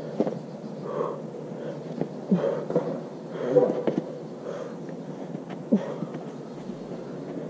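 Bouldering climber's effortful breathing with short strained grunts while mantling onto the top of a boulder, mixed with a few sharp scuffs and taps.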